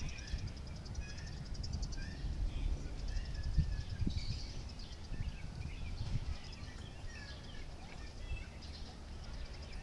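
Small birds chirping in short scattered calls over a low, uneven rumble.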